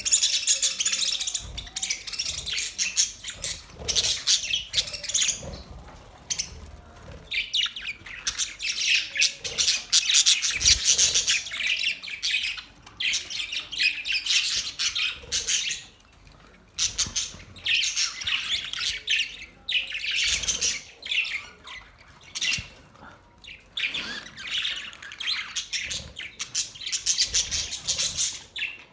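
Budgerigars chirping and chattering in bouts of a few seconds, with brief pauses between bouts.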